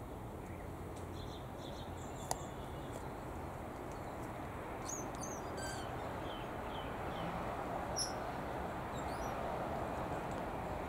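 Scattered soft chirps from small aviary birds, a few short high notes at a time, over a steady background rumble, with two sharp clicks about two and eight seconds in.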